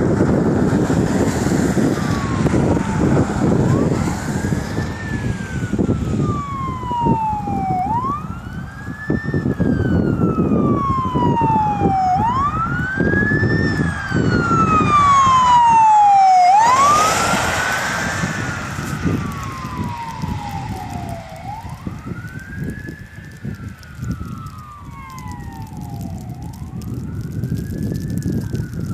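Ambulance siren wailing, each cycle a quick rise and a slower fall about every four seconds, growing louder as the ambulance approaches, passing close about two-thirds of the way in with a drop in pitch, then fading as it drives away. Traffic and tyre noise on the snowy road underneath, loudest at the start.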